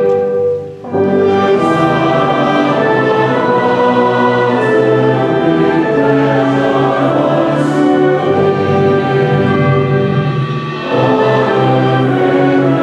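Choir singing the university alma mater to orchestral accompaniment, in sustained chords, easing off briefly between phrases about a second in and again near the end.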